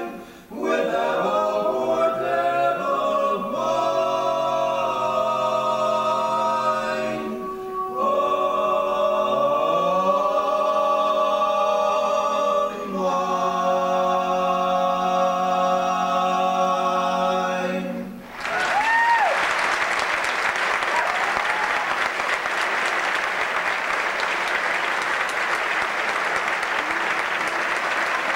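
Male voices singing a cappella barbershop harmony in several phrases, closing on a long held chord. About 18 seconds in the singing stops and audience applause breaks out, with a couple of whistles near its start.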